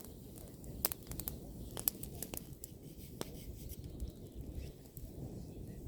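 Bonfire of pruned apple-tree branches crackling: sharp pops and snaps, most of them in the first three seconds, over a low steady rumble.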